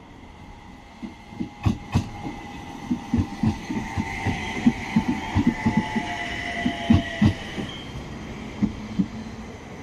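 Light-rail tram passing close by over a set of switches, its wheels knocking in an uneven run of clunks across the rail joints and crossings, with a high whine under the rumble of the pass.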